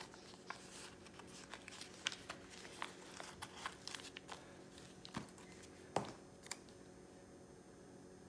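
Paper sticker sheet handled and a box sticker peeled off its backing: faint crinkling with scattered sharp little ticks, the loudest about six seconds in, dying down near the end.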